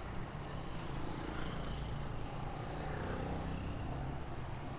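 Steady city traffic noise: the low rumble of nearby vehicles' engines.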